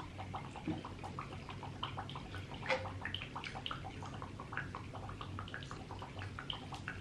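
Close-miked wet eating sounds: chewing and lip smacking on seafood boil, a rapid patter of small wet clicks.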